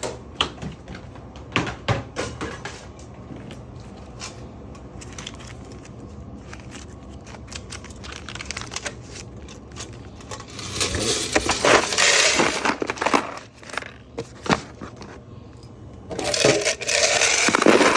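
A 1980 snack vending machine being worked: a few clicks, then two loud stretches of clattering about three seconds long, about ten and sixteen seconds in, like coins rattling through the coin mechanism, over a steady low hum.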